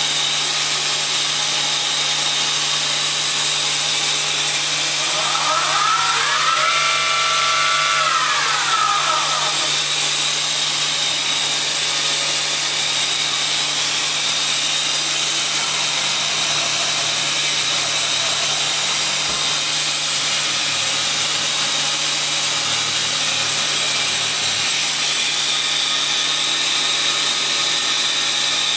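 Mazak Nexus 410A vertical machining centre running under power, with a steady hiss and a low hum. About five seconds in, the spindle's whine rises in pitch, holds for a couple of seconds, and falls away by about nine seconds.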